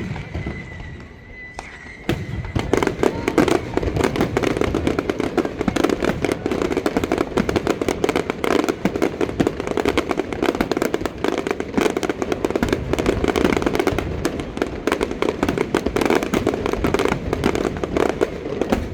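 Fireworks going off: a sharp bang or two, then from about two seconds in a dense, continuous crackling barrage of many small bursts.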